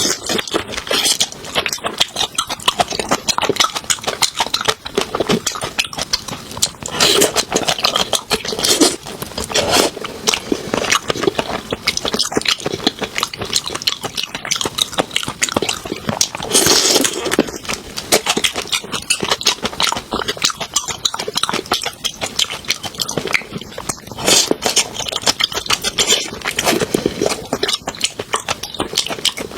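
Close-miked mouth sounds of a person eating seafood: steady wet chewing and smacking, with several louder bursts of biting or slurping.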